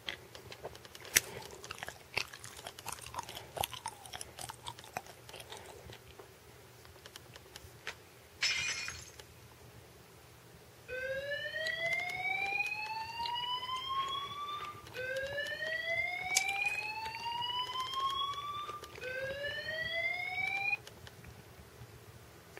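Fire-alarm app's siren tone playing from a phone's speaker: three slow sweeps rising in pitch, the third cut off short. Before it come light tapping and handling clicks and a short burst of noise about eight seconds in.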